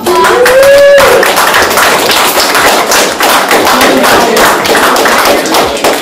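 Audience applauding, a dense patter of many hands clapping at once. A single shout rises in pitch in the first second.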